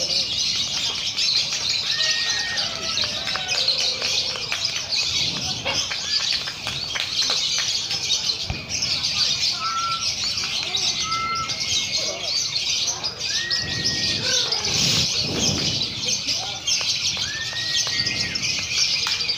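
Many caged lovebirds chattering at once in a dense, continuous high-pitched din, the sound of lovebirds competing at a singing contest. Short flat whistled notes come through now and then.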